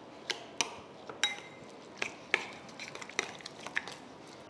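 Steel spoon stirring a thick curd-and-grated-radish mixture in a glass bowl, clinking against the glass about eight times at an irregular pace, some clinks with a brief ring.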